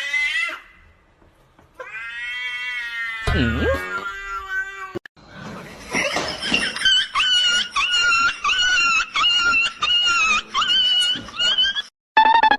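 Cat meowing and yowling: a long drawn-out call, then a run of short repeated meows, about two a second, through the second half.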